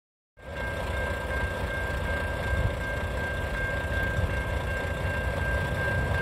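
Level crossing warning bell ringing as a steady high tone over the low rumble of an approaching freight train, which slowly grows louder. The sound starts a moment after a short silence.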